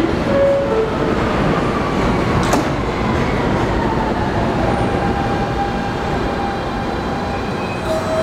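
Kawasaki R160B subway train at the platform: a short two-tone chime, the second note lower, then the doors shut with a click. A steady rumble and hum follows, and near the end a whine from its electric propulsion starts as the train begins to move off.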